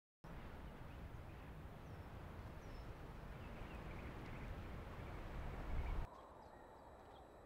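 Outdoor background noise with a low rumble and a few faint bird chirps. It drops abruptly to a quieter hiss about six seconds in.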